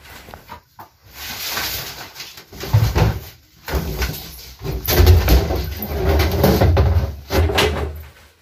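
A large drum being shifted and scraped across the floor, with heavy knocks and rubbing as it is moved.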